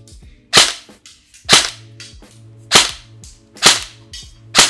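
Krytac Trident MK2 airsoft electric gun (AEG) firing five single semi-auto shots, about a second apart, each a sharp crack with a short echo. Lo-fi background music plays underneath.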